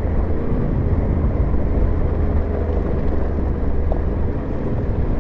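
Yamaha Ténéré 700's parallel-twin engine running steadily under way, breathing through an aftermarket HP Corse high exhaust, with an even low hum.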